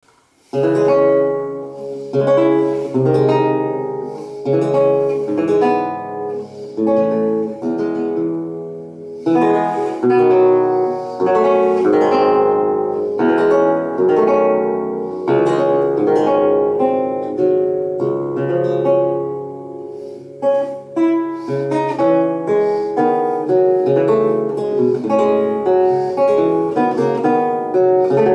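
Solo theorbo (baroque long-necked lute) played fingerstyle: plucked chords and melodic lines over low bass notes, each note ringing and fading. It begins about half a second in, and the notes come quicker and more closely packed in the second half.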